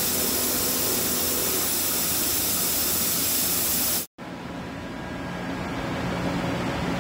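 CNC machine at work: a loud, steady hiss until a sudden cut about four seconds in. After the cut comes a steady machine hum with a low drone that slowly grows louder.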